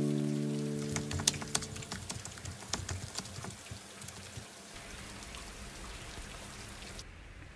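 The last guitar chord of the intro music fades out in the first second or so, then a rain sound effect: scattered drops ticking irregularly for about three seconds and fading away into a faint hiss.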